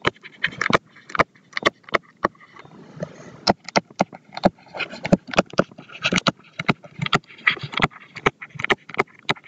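Stylus tapping and scratching on a tablet screen during handwriting: an irregular run of sharp clicks, several a second, with faint scratchy strokes between them.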